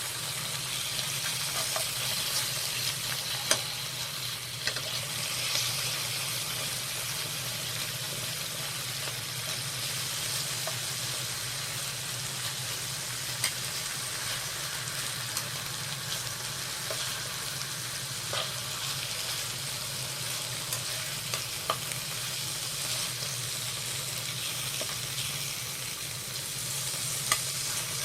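Duck meat, tofu and onion frying in a pan: a steady sizzle with a few sharp ticks scattered through it, over a faint low hum.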